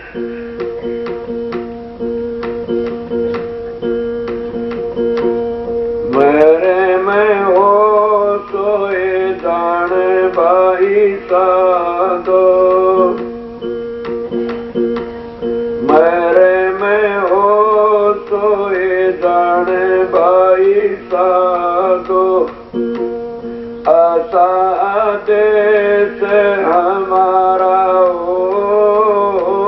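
Devotional singing in long, wavering, ornamented phrases over a steady plucked-string drone. For the first six seconds the drone plays alone with its repeated plucks, then the voice comes in for four long phrases with short breaks between them.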